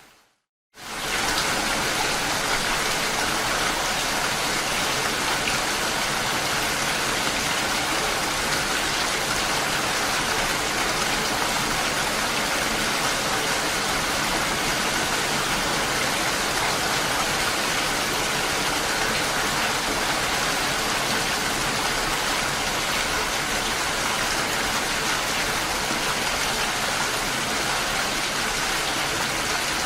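Steady rain falling, an even, dense hiss. Right at the start the sound fades out to silence for under a second, then fades back in.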